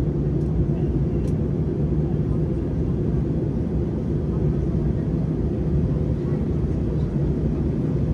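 Steady in-flight cabin noise of an Airbus A321-231 heard inside the cabin: the even rush of air past the fuselage over a low, constant drone from its IAE V2500 turbofan engines.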